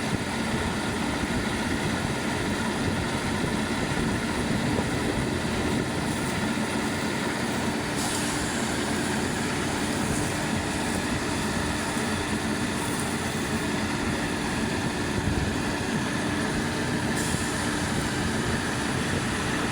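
Borehole drilling rig and its 18-bar air compressor running steadily, a dense machine noise with a few steady hums. A high hiss steps up sharply about eight seconds in and again near the end.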